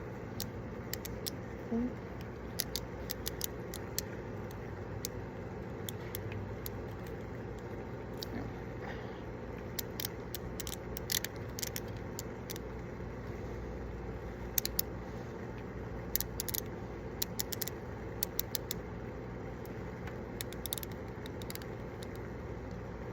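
Steady low background rumble with scattered light clicks and rattles, as of small objects being handled, coming thickest in the middle and toward the end.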